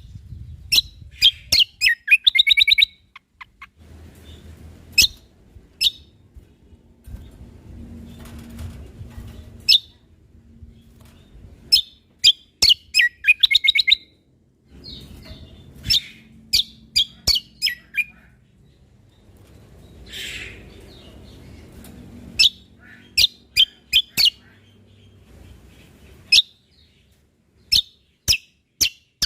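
Cucak kombo (kecial kombok) songbird singing: sharp, high chirps and short fast rattling trills in clusters, with brief pauses between phrases. A faint low rumble lies under the quieter gaps.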